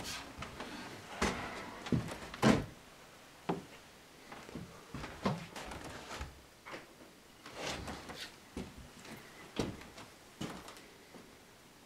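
Slow, irregular footsteps and knocks on the wooden plank floor of a small cabin, about one a second, growing fainter toward the end.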